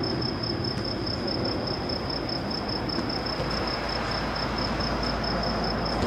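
Cricket chirping: a steady, rapidly pulsing high note that carries on evenly, over a constant background hiss.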